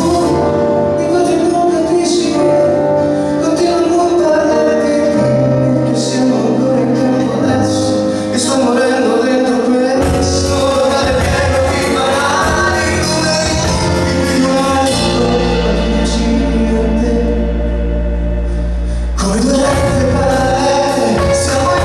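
Live band playing a song with a lead singer: keyboards, electric and acoustic guitars and drums under a sung vocal line, with sustained bass notes that shift every few seconds.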